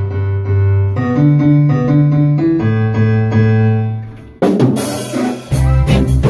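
Reggae band in rehearsal: the drums drop out, leaving long held bass notes under sustained keyboard chords for about four seconds. The drum kit and full band come back in about four and a half seconds in.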